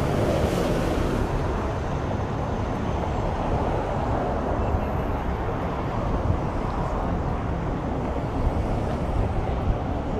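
Busy street ambience: a steady rumble of passing traffic mixed with wind buffeting the microphone.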